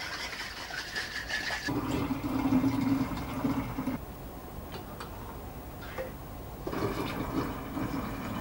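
Cleaning solution sloshing in a glass bottle as it is shaken. About two seconds in, liquid starts pouring and gurgling into a glass bottle. It eases off for a few seconds, then pours again near the end.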